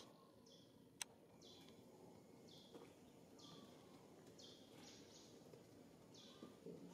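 Faint outdoor background in which a bird repeatedly gives a short, high, downward-slurred chirp, roughly once a second. A single sharp click comes about a second in.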